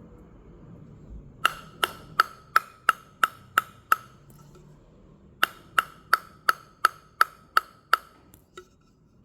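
A table tennis ball bounced repeatedly on a Butterfly Korbel racket: two runs of eight sharp, ringing pings at about three a second, a short pause between them, then one softer tap near the end.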